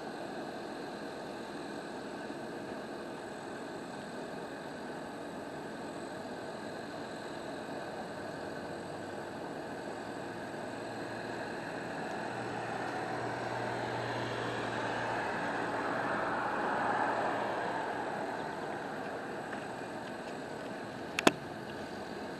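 A vehicle passing on the street, its engine and tyre noise swelling over several seconds and fading again, over steady background traffic hum. A single sharp click near the end.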